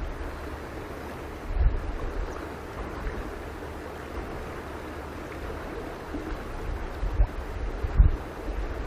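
Shallow stream water running steadily over rocks, with low gusts of wind buffeting the microphone about a second and a half in and again near the end.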